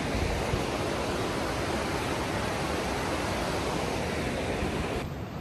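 A river in flood after days of heavy rain, running high bank to bank and roaring steadily. The noise drops away abruptly near the end.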